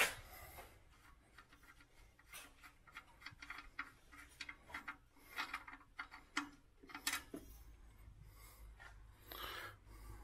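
Faint, irregular clicks and scrapes of hand tools and parts being handled, with a sharper click at the start and a faint low hum joining in about two-thirds of the way through.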